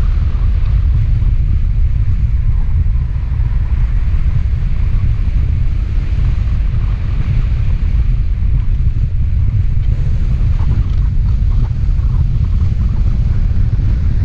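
Wind buffeting the camera's microphone: a loud, steady, low rumble of rushing air from a hang glider's flight through the air.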